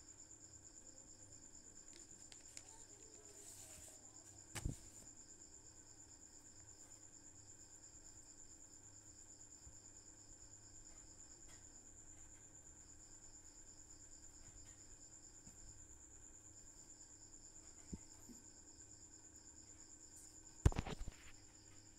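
Crickets trilling faintly and steadily, a high pulsing chirp with a second, lower trill that drops out now and then. A sharp knock comes about five seconds in, and a louder clatter of knocks near the end.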